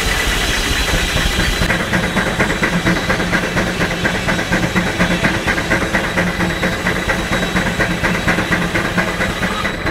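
Steam engine running with a steady beat of exhaust chuffs, about three a second. A loud hiss of escaping steam fades out a second or two in.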